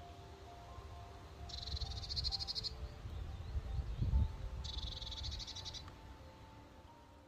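A songbird's high, rapid trill, about a second long, sung twice about three seconds apart. Under it are wind rumbling on the microphone, with a strong gust about four seconds in, and soft background music.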